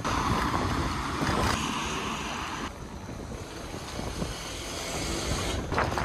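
Wind buffeting the microphone of a camera moving along on a bicycle, a steady rumbling rush with street traffic beneath it. The noise shifts abruptly a couple of times.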